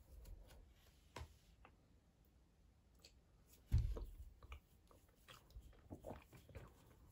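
Faint handling sounds of crocheting double crochet stitches in cotton twine with a hook: soft scattered ticks and rustles, with one dull thump a little under four seconds in.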